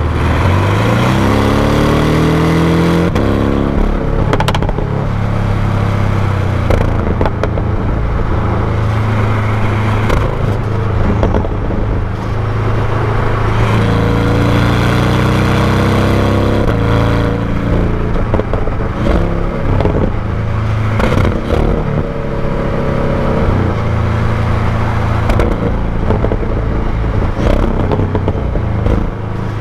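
Porsche 718 Cayman GTS's turbocharged 2.5-litre flat-four heard through its stock exhaust from close to the tailpipe. It rises in pitch under throttle over the first few seconds and again about halfway through, and runs at a steady low note in between, with a few scattered knocks.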